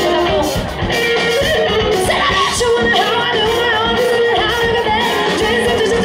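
Live band playing: a woman singing lead over electric guitar, saxophone and drums, with a steady beat.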